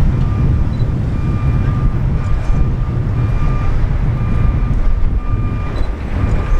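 A truck's reversing alarm beeping steadily, about one half-second beep each second, as the semi-trailer backs up, over a heavy low rumble.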